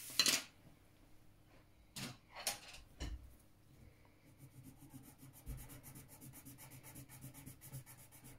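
A few short rubs and knocks as a plastic set square is slid across the drawing sheet and set down, then a coloured pencil shading back and forth on paper from about four seconds in, a fast, even scratching.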